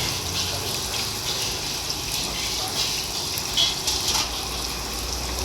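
Hot oil sizzling and crackling steadily in a deep-frying wok, with small pops through the hiss.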